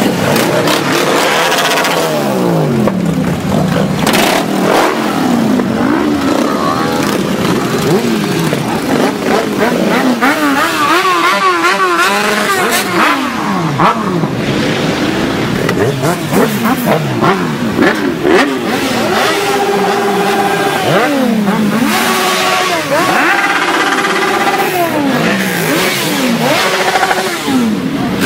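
A stream of motorcycles riding past one after another, several engines at once, their notes rising with the throttle and falling away as each goes by.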